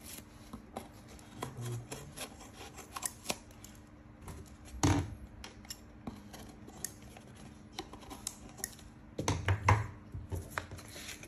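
Scissors snipping paper wrapped around a plastic cup, in scattered short snips and clicks with handling rustle. One louder snip comes about five seconds in and a quick cluster near the end.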